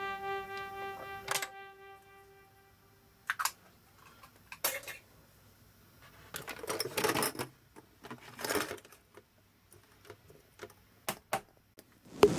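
A held synthesizer note fades out in the first two seconds. After it come scattered sharp plastic clicks and two brief rustles of small plastic toys and capsule eggs being handled and opened.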